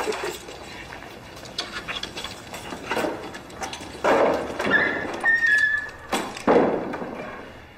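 Footsteps on paving, then heavy wooden warehouse doors pushed open, with two loud scraping sweeps about four and six and a half seconds in and a short high creak between them.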